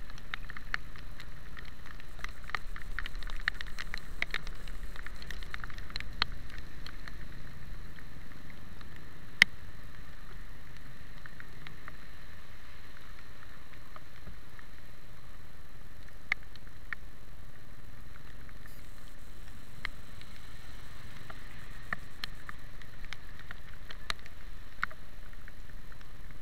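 Raindrops ticking irregularly on the camera over the steady rumble and wet-road hiss of a moving motorcycle, with a few sharper clicks.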